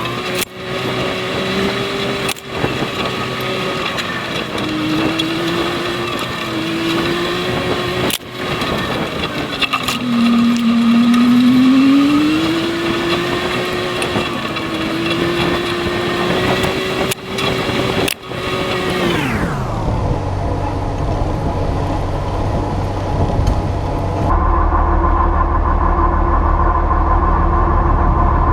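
A John Deere 9500 combine harvester running, with a steady machine whine over the engine. About ten seconds in the whine drops in pitch and gets louder for a couple of seconds, as if the machine is loading down, then comes back up. The sound breaks off briefly several times. From about twenty seconds it changes to a lower, steadier drone with a steady hum.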